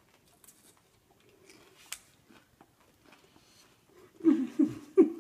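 Faint mouth clicks and smacks of a man biting into and chewing a ghost pepper. Near the end come several short, low vocal sounds from the throat as the pepper's heat sets in.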